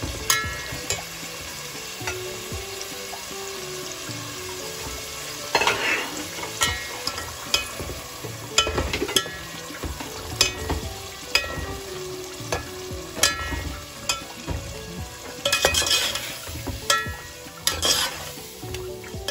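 Onion and tomato masala frying in oil in a large metal pot, sizzling steadily, with ground spices just added. A perforated steel skimmer stirs it, clinking and scraping against the pot, with louder scrapes about six seconds in and again near the end.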